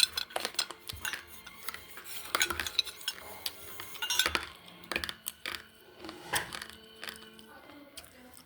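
Slate pencils clicking and clinking against each other as they are handled: irregular sharp knocks, a few to several a second.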